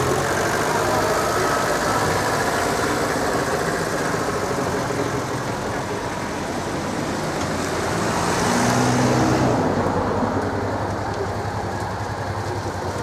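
Road traffic at close range: cars and a small road tourist train driving past, its engine growing loudest about eight to nine seconds in and then falling away.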